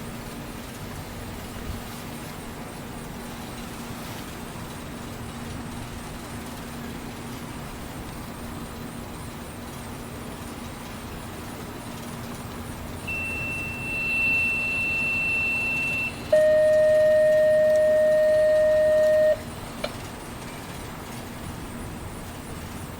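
Steady background hum, then about 13 seconds in two steady radio tones in sequence: a high tone for about three seconds, then a lower, louder tone for about three seconds, ending with a click. These are two-tone sequential activation tones over the dispatch radio, the signal sent to set off the storm sirens for the test.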